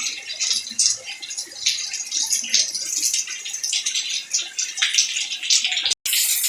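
Heavy thunderstorm rain coming down close by: a dense, irregular patter of drops splashing and splatting on hard surfaces. The sound cuts out for an instant about six seconds in.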